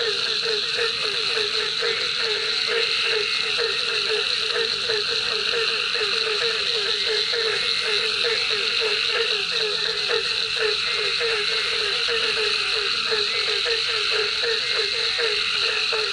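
Frogs calling at a pond at night, a dense, unbroken run of quick repeated croaks over a steady high-pitched drone of other night callers.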